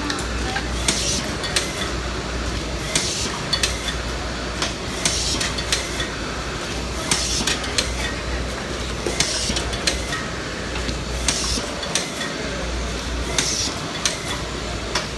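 High-speed cotton bud making machine running: sharp metallic clacks from its mechanism, roughly one or two a second, over a steady low hum.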